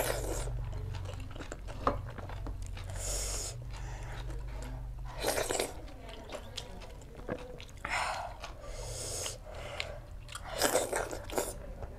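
A person chewing and biting food close to the microphone, with irregular bursts of eating noise every second or two.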